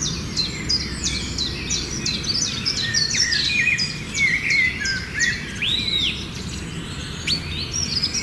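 Many birds chirping in quick, overlapping calls, with one longer arched whistle about six seconds in, over a low steady rumble.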